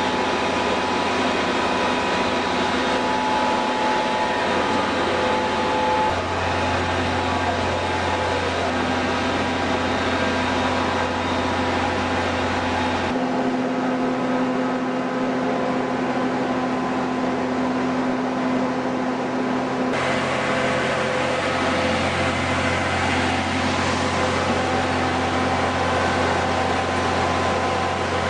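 Industrial machinery running steadily: a constant motor hum with several steady whining tones. The mix of tones shifts abruptly about 13 and 20 seconds in.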